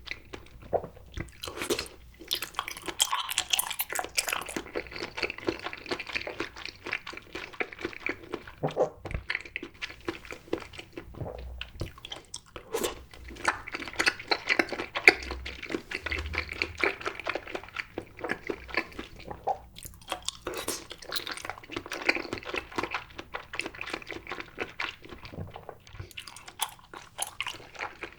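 Close-up mouth sounds of grape jelly being chewed: dense, wet clicking and squelching, pausing briefly a few times.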